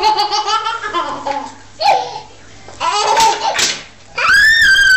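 Baby laughing and squealing in short high-pitched bouts, ending in one long high squeal.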